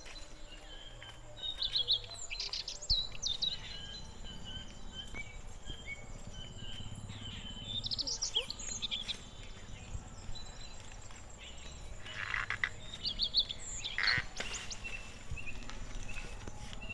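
Several birds chirping and calling, with short tweets and quick trills scattered throughout and a louder call twice near the end.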